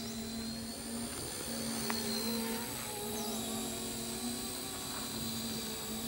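Homemade electric remote-control helicopter in flight: a steady motor whine and rotor buzz that wavers slightly in pitch.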